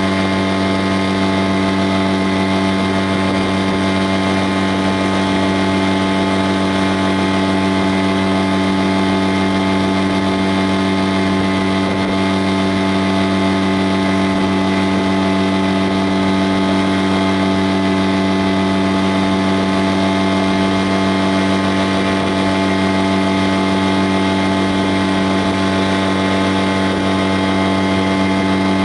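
An engine running at a constant speed, a steady drone whose pitch never changes.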